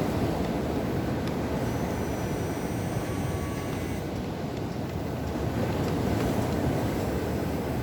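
Huina RC excavator working, its small electric motors and plastic gearboxes whining faintly, with a higher whine about two seconds in, over a steady low rushing noise.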